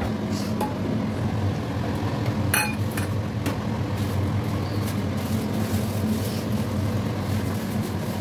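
A steady low mechanical hum, with a few light clicks and clinks in the first few seconds.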